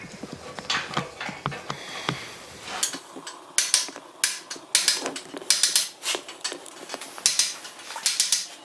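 Blacksmith's hammer striking a small top tool against steel held in a vise, tucking the end of a horseshoe hinge around its barrel. Light, scattered taps for the first few seconds, then sharper, louder metallic blows in quick, irregular runs.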